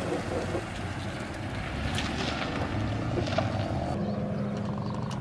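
A vehicle engine running as it drives on a dirt road, with wind noise on the microphone. The sound changes to a steadier low hum about four seconds in.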